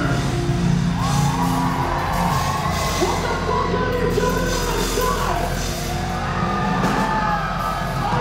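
Rock music with a loud vocal line held and gliding over a dense, heavy low end.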